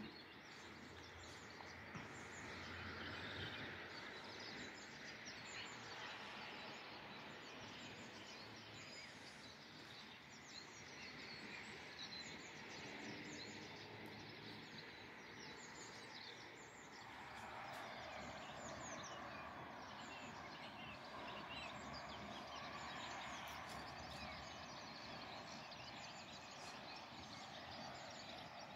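Faint, steady outdoor background noise over a town, thickening about two-thirds of the way through, with scattered faint bird chirps.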